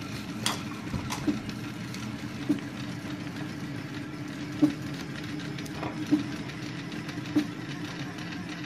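3D printer running with a steady mechanical hum, with a few light clicks and scrapes from a hobby knife cutting heat-shrink tubing off an ESC.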